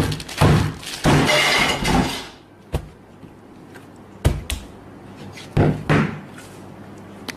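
A hand slapping and squashing sandwiches on a hard surface: a series of dull thuds, with a longer rustling, squelching noise about a second in.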